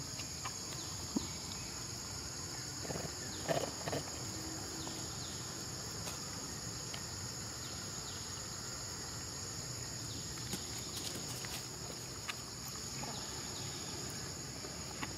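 Steady high-pitched insect chorus, crickets or cicadas, droning without a break. A couple of brief, sharper sounds stand out about three and a half seconds in, with a few faint clicks scattered through.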